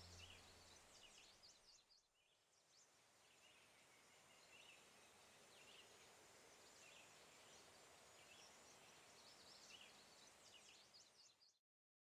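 Faint woodland ambience: small birds chirping over a soft hiss, cutting off abruptly near the end.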